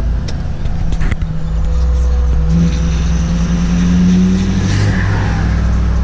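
Ford F-250 diesel pickup engine heard from inside the cab, floored so that it rolls coal. It climbs in pitch and loudness under hard acceleration, with a faint high whistle over it, then eases off about five seconds in.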